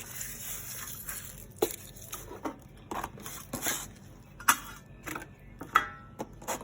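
Dried leaves crackling and rustling as they are crumbled and dropped in with compost waste, in short irregular crunches several times.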